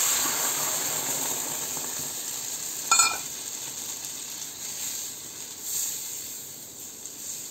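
Thick coconut milk poured into a hot pan of fried spice paste, sizzling and hissing, loudest at first and dying away as the milk cools the pan. A single sharp clink about three seconds in.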